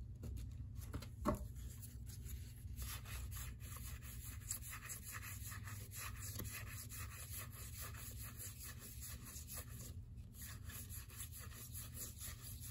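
A stack of cardboard baseball cards being thumbed through by hand, card sliding over card in a faint, quick run of soft rubs and flicks, a few a second.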